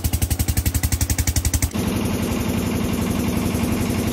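An engine running with a fast, even chugging pulse of about a dozen beats a second. Nearly two seconds in, the sound cuts abruptly to a steadier engine hum.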